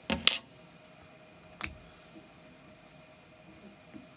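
Small sharp clicks and taps of fly-tying tools being handled at the vise. There is a quick cluster of two or three right at the start and one more click about a second and a half later.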